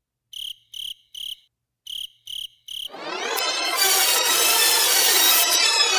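Cricket chirps against silence, six short high chirps in two groups of three, a comic 'crickets' effect. About three seconds in, electronic music starts and swells.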